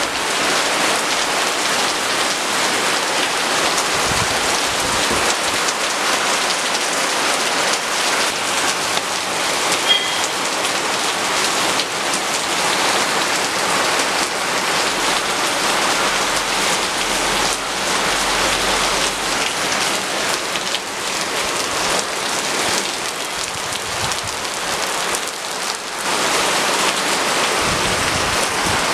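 Heavy rain pouring steadily on leafy trees, a dense even hiss of falling water.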